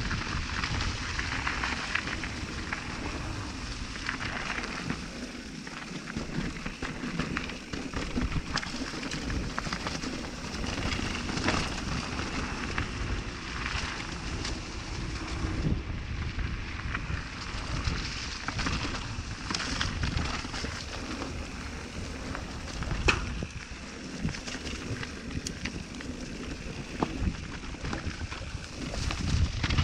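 Mountain bike riding fast downhill on a singletrack trail: the tyres make a continuous crackle over dirt and stones, and the bike gives frequent sharp knocks and rattles.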